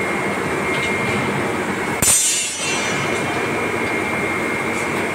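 Steady drone of heat-treatment shop machinery with a constant high whine. About two seconds in, a sudden sharp burst with a hiss that fades within a second.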